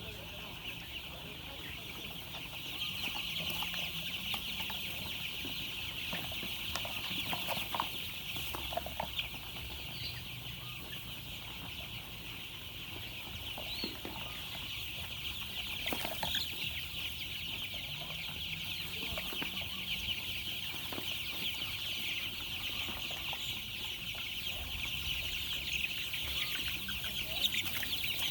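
A large group of baby chicks peeping together in a steady, dense chorus, with a few faint knocks.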